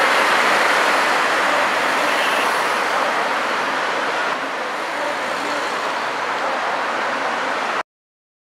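Steady city street traffic noise, a dense wash of passing cars, that cuts off suddenly near the end.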